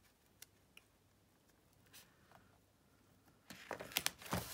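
Hands handling and pressing down layers of card stock: a few faint taps at first, then a louder stretch of paper rustling with a couple of sharp taps near the end.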